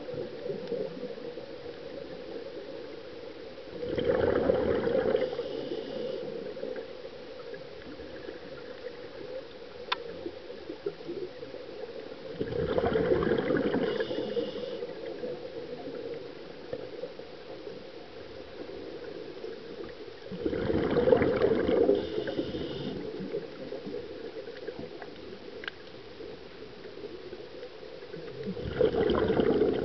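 Scuba diver's regulator exhaust underwater: a rush of exhaled bubbles about every eight seconds, four times, each lasting about two seconds, marking the diver's slow breathing. A steady low background sound runs between the breaths.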